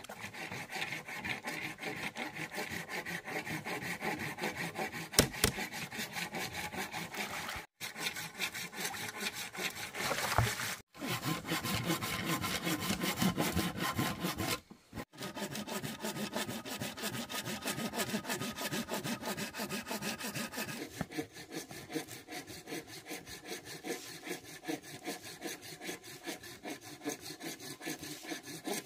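A cleaver chopping greens on a wooden cutting board: fast, even strokes of the blade against the wood, with three short breaks.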